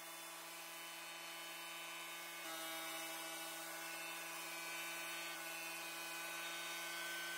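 Gravity-feed spray gun on an air hose spraying finish, a steady hiss of air and paint over a steady whining hum.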